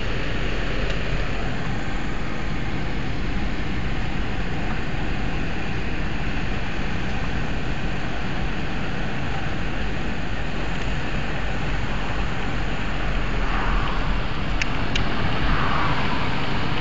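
Steady engine and road noise of a moving car, heard from inside the cabin, with a few light clicks near the end.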